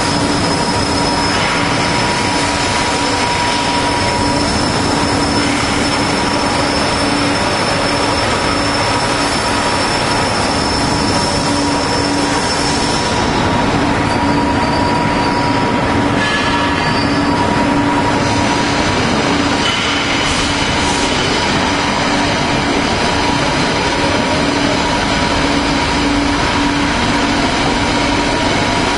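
Kaltenbach WBZ 1500 plate drilling and profiling machine running: loud, steady industrial noise with a constant whine and a pulsing hum. A higher whine stops about halfway through.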